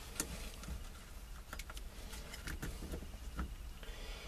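A few faint, scattered clicks and light taps of small parts and tools being handled while a steering column is taken apart, over a low steady hum.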